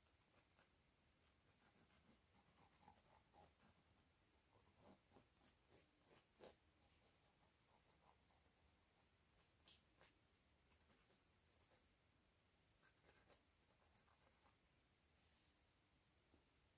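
Faint, short scratching strokes of a thin drawing tool sketching a face on a stretched canvas, coming in small irregular bursts.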